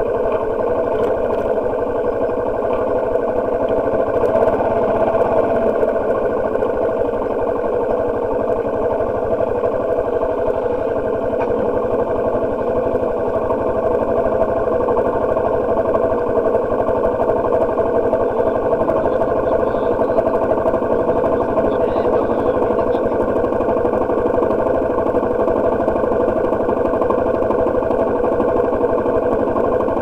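Freshly overhauled motorcycle engine running steadily at low revs, idling for much of the time.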